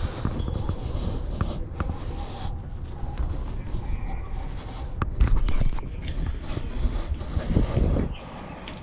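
Close, rumbling handling noise with rustles, creaks and small knocks as someone climbs down a vertical ladder with the camera gripped in his teeth. The heavy rumbling drops away about eight seconds in.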